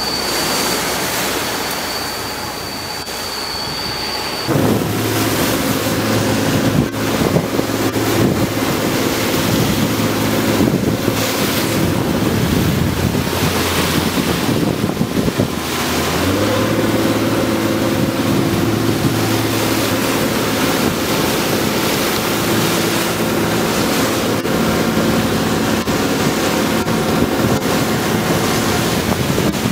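Wind buffeting the microphone over the sound of sea water, with a thin high whine for the first few seconds. From about four seconds in, a fishing boat's engine runs steadily under the wind and water, its note shifting slightly about halfway through.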